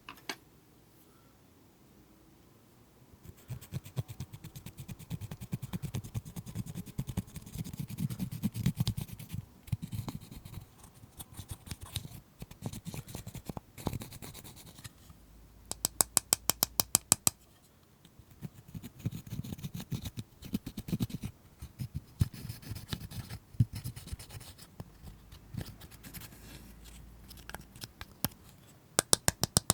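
Slime being pressed, stretched and kneaded by hand, giving a dense run of small clicks, pops and crackles, with louder bursts of rapid sharp clicks about halfway through and near the end.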